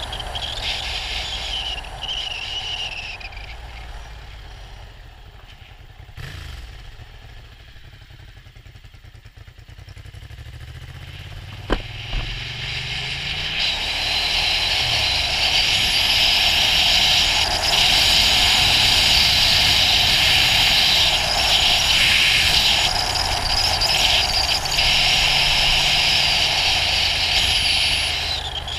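Ducati GT1000's air-cooled L-twin engine on the move. The engine falls away and quietens for several seconds; there is a sharp click about twelve seconds in. It then picks up again with rising pitch as the bike accelerates, and loud wind and road hiss builds with speed.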